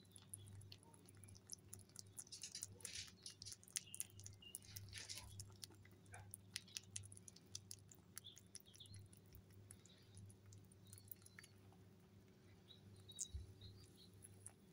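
Mini Lop rabbits nibbling and chewing banana from a hand: a quick, irregular run of faint, crisp clicks, busiest in the first half and thinning out later, over a low steady hum.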